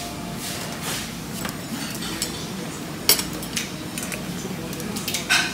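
Cutlery clinking against dishes at a meal table: scattered light clinks over low room noise, the sharpest about three seconds in.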